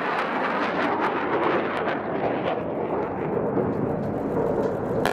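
Swiss Air Force F/A-18 Hornet's twin turbofan engines roaring through a low, fast pass, with a ragged crackle over the roar at first; the hiss and crackle fade after about two seconds while the deep roar carries on.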